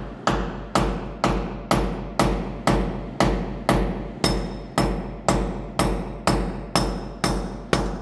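Hammer blows on a steel cable-mounting bracket held against a concrete wall, driving its fixing in: a steady run of sharp knocks about twice a second. Some strikes carry a brief metallic ring.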